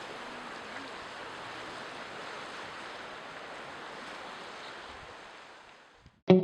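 Ocean surf washing as a steady rush of noise, fading out near the end.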